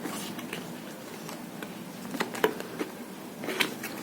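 Cardboard charger box being opened and handled: a few light taps and rustles, most near the middle and end, over a faint steady buzz.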